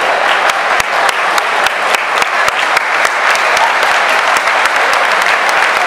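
Large stadium crowd applauding, a steady wash of clapping with sharp individual claps close by.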